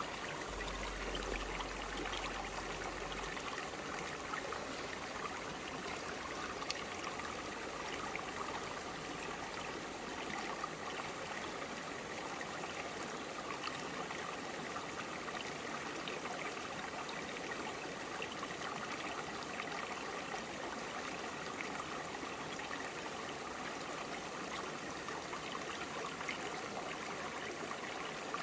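Clear forest stream flowing over broad rocks: a steady burble of running water with small splashes and trickles.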